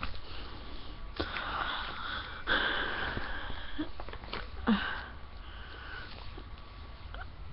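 A person breathing and sniffing close to the microphone: several noisy breaths, each about a second long.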